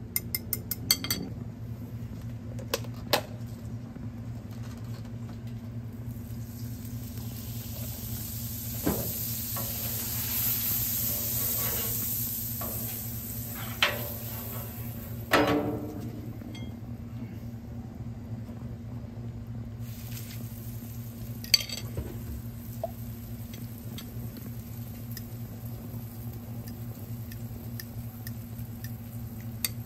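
A fork whisking and clinking against a glass bowl of egg-and-cream batter, with a quick run of clicks at the start. Butter sizzles on a hot Blackstone flat-top griddle for several seconds partway through as a metal spatula spreads it, with a few sharp clinks and scrapes. A steady low hum runs underneath.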